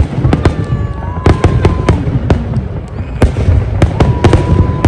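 Fireworks going off: a quick run of sharp cracks and bangs over a low rumble, with a steady whistling tone heard twice.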